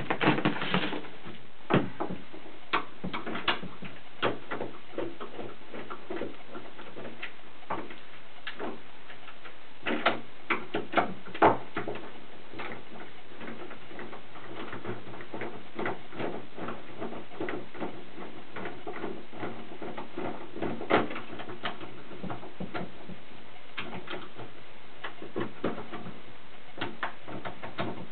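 Scattered light clicks and taps of metal hardware as the screws are undone from a door lockset, over a steady low background hum.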